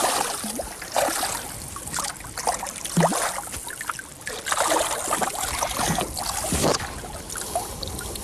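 Water splashing irregularly as a hooked lake trout thrashes at the surface beside the boat and is grabbed by hand and lifted out.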